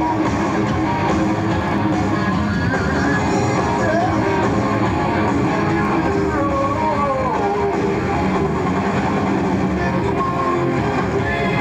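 Live heavy rock band playing at full volume, with distorted electric guitar out front over bass and drums, taped from the audience in an arena.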